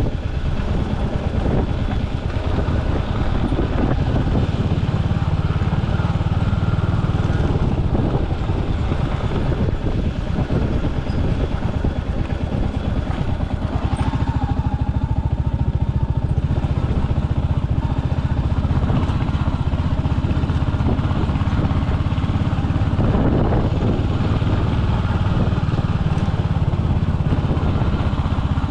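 Royal Enfield Hunter 350's single-cylinder engine running steadily as the motorcycle is ridden.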